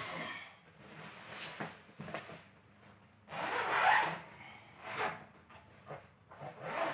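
Zipper on a padded fabric carry bag being pulled open, with a rasping run of about a second near the middle, among softer fabric rustles and handling noises.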